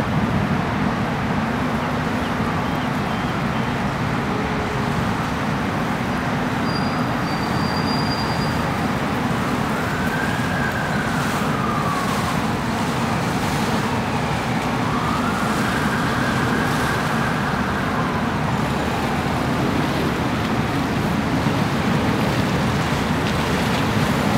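A steady rumble of boat engines and churning water. Partway through, a siren wails up and down twice, the second time holding high for a couple of seconds before falling away.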